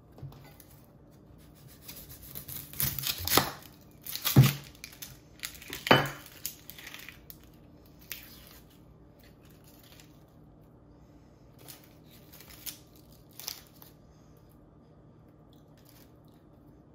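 Dry, papery onion skin peeled off by hand, crackling and tearing. It comes in a cluster of bursts from about two to seven seconds in, loudest twice in the middle, then a few faint crackles near the end.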